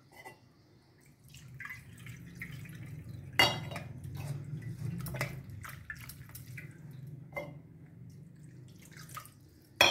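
Water dripping and trickling from freshly washed chhena (milk curds) through a muslin cloth in a strainer, with a metal spoon clinking against the strainer a few times, loudest about three and a half seconds in.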